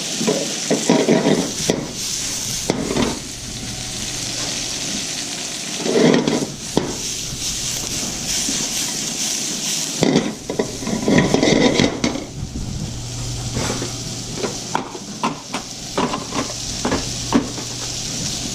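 Chicken and vegetable stir-fry sizzling steadily in a hot oiled pan, with several bursts of a utensil scraping and clattering against the pan as the food is stirred and tossed.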